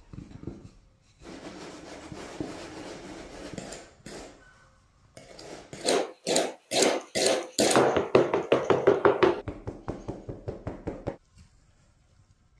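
A wooden rolling pin rolls over the rim of a fluted metal tart tin with a rough scraping, cutting the shortcrust away. Then a knife trims the dough around the tin's edge in a quick run of sharp scraping strokes against the metal, stopping about eleven seconds in.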